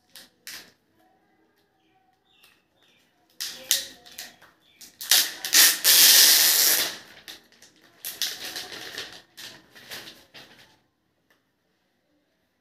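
Clear plastic film crinkling and rustling as a pen tablet is handled and slid out of its wrapping, in uneven bursts from about three and a half seconds in, loudest in the middle, dying away near the end. A few light handling clicks come at the start.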